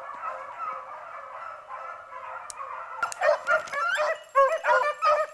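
A pack of beagles baying as they run a rabbit's scent trail. Many overlapping voices sound faint and far off at first; from about three seconds in, louder, closer bays come one after another.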